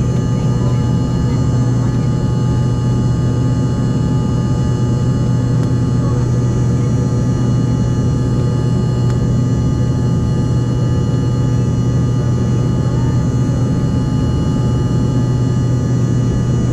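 Engine noise inside an airliner's cabin during climb-out after take-off: a loud, steady drone with a strong low hum and constant higher tones that do not change.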